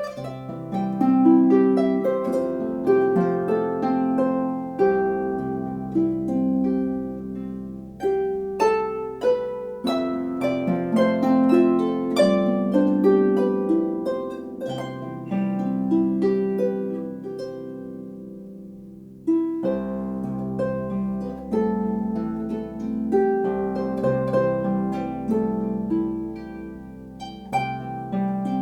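Music Makers Regency 34-string harp played solo: plucked notes ringing over a deep bass line. The playing dies away about two-thirds of the way through and starts again a moment later.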